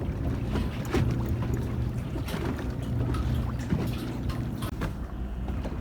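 A boat's engine running steadily, with water splashing and sloshing and scattered knocks.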